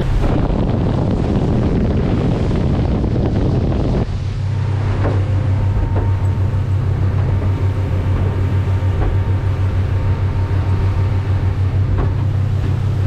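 Motorboat underway at speed: a rush of wind and spray noise on the microphone, changing about four seconds in to a steady low drone of the boat's engine and hull heard from inside the cabin, with a few faint knocks.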